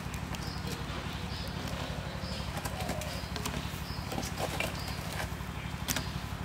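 Wood fire burning in a clay stove under a wok of boiling water, a steady fluttering low rumble, with a few sharp cracks as dry instant-noodle cakes are broken into the pot. A short high chirp repeats about once a second behind it.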